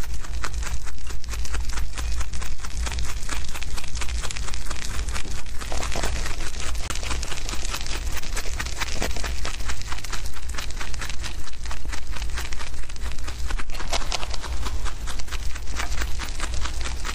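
Young rabbits chewing fresh grass blades close to the microphone: a rapid, continuous crunching with the leaves crackling and tearing as they are pulled, over a steady low rumble.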